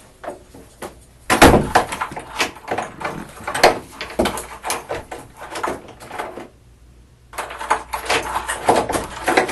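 Room door closing with a heavy thump about a second and a half in, followed by scattered knocks, clicks and handling noises, a short quiet spell, then more clicks near the end.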